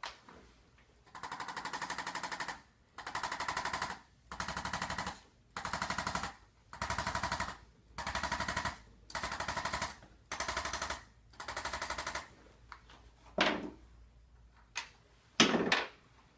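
Hand-held chiropractic adjusting instrument firing in nine bursts of rapid clicking, each about a second long. The instrument delivers quick repeated thrusts instead of a manual "crack" adjustment. A few separate, louder sharp knocks follow near the end.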